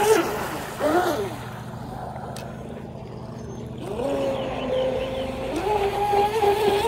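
Pro Boat Blackjack 24 RC catamaran's Turnigy 3665 2100kV brushless motor whining as the boat runs on 4S during an easy warm-up pass. The whine changes pitch with the throttle, drops away for a couple of seconds after about a second in, then comes back steady.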